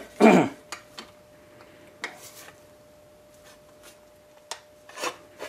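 Thin sheet steel being flexed by hand over a rounded form in a bench vise, bending its edge into a curve: a loud wobbling flex whose pitch falls, just after the start, then scattered light metallic clicks and taps as the sheet shifts against the vise.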